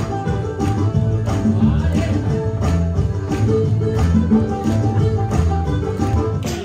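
Music with a steady beat and a bass line.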